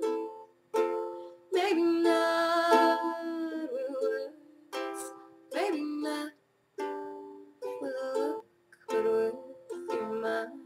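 Small green ukulele playing an instrumental passage: strummed chords that ring and fade, with brief gaps between them.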